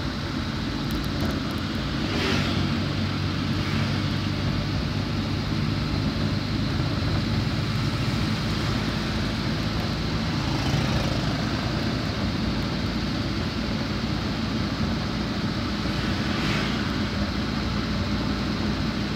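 Steady engine drone and tyre noise from inside a moving car on a wet road. Two brief hissing swells come about 2 and 16 seconds in.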